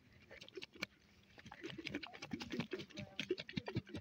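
Small fish flopping and wriggling on wet mud and dry grass: a rapid patter of little slaps and rustles, busier from about a second and a half in.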